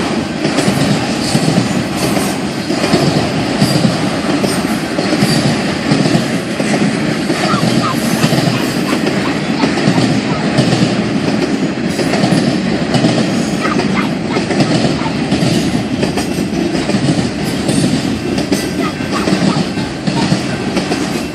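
Long freight train rolling past close by: a steady rumble of wagons on the rails with wheel clatter and a few faint, brief wheel squeals.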